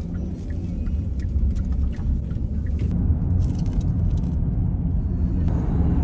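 Steady low rumble of a car driving, heard from inside the cabin, with a few faint light clicks over it.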